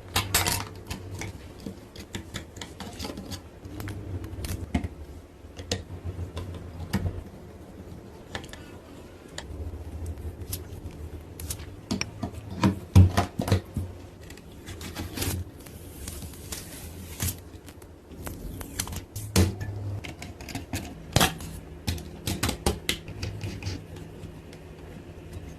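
Irregular clicks, taps and knocks of computer parts being handled and fitted together during a gaming PC assembly.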